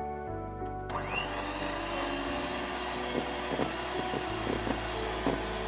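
Electric hand mixer switched on about a second in, its motor whining up to speed and then running steadily as the beaters whip eggs into creamed butter and sugar, with repeated knocks of the beaters against the metal bowl.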